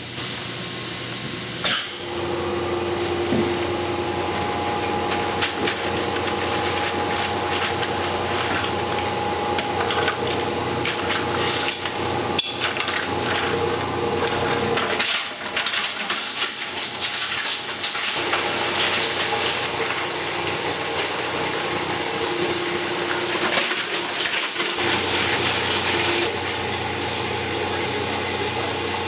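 Nelmor G1012M1 plastics granulator running, its three-blade rotor cutting plastic against the bed knives: a dense clatter of chopped pieces over the steady hum of the drive. Near the end the clatter thins and the machine runs on more evenly.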